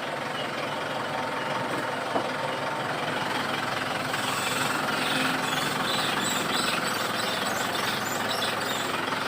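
Mitsubishi Pajero's engine running with the transmission in reverse, and a faint high squeaking from the driveline, like a shrew, that comes and goes in the second half. It occurs whenever a gear is engaged, and the mechanic suspects the universal joint cross on the propeller shaft.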